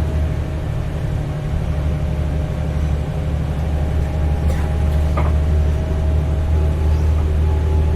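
Heuliez GX317 LPG city bus heard from inside the cabin while driving: a steady low engine drone with a faint whine above it, and a brief squeak and click about five seconds in.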